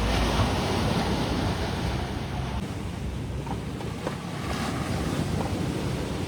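Steady rushing of wind on the microphone mixed with sea surf, a little louder in the first couple of seconds.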